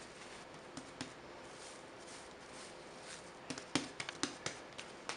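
Hands pressing and punching down a ball of proofed bread dough on a wooden board to knock the air out: a quick run of soft slaps, several a second, starting about three and a half seconds in.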